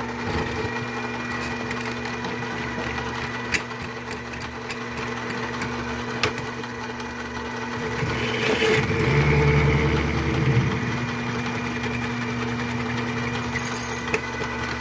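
Mini lathe running steadily with a motor whine while a drill bit cuts into a spent Berdan primer in a rifle case. There are a few sharp clicks, and the cutting grows louder and rougher from about eight to eleven seconds in.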